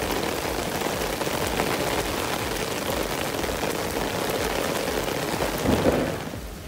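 Steady rain falling, an even hiss of many small drops pattering on surfaces. A brief louder sound comes near the end, then the rain drops away sharply in level.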